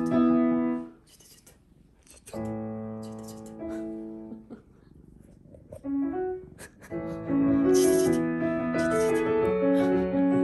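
Background piano music: a few separate chords with pauses between them, then playing more continuously from about seven seconds in.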